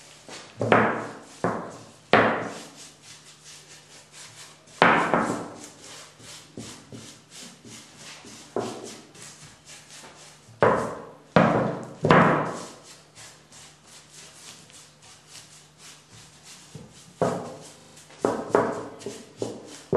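About a dozen sharp knocks at irregular intervals, some in quick pairs, each ringing briefly, from wooden bentwood chair rings and a stain brush being handled on a work table. A steady low hum runs underneath.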